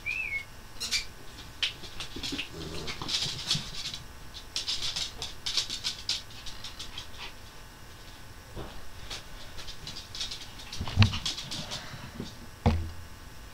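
A Chihuahua puppy and another dog moving about, with claws pattering and scrabbling and rustling throughout. There is a short high squeak right at the start, and two low thumps near the end.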